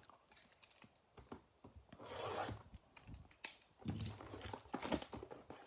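Cardboard blaster box of baseball cards being handled and opened on a table: light knocks, scraping and rustling of the flap, busiest in the last two seconds.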